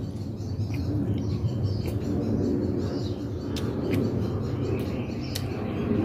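Small birds chirping over a steady low background rumble, with a few short sharp clicks.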